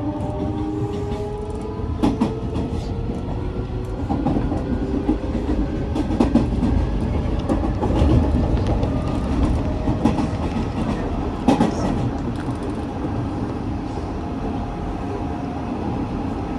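Hanshin 9000 series electric train heard from inside the passenger car as it pulls away: the motor whine rises in pitch over the first few seconds, then fades into a steady running rumble with sharp wheel clacks over rail joints every couple of seconds.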